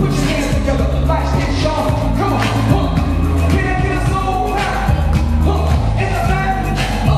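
Live hip-hop/pop concert music with heavy bass and drums and sung or rapped vocals, loud and distorted as picked up by a camera microphone in the crowd.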